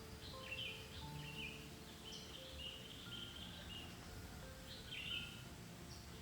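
Several small birds chirping and calling in short, quick phrases, with a brighter burst of calls about five seconds in, over a steady low background hiss of forest ambience.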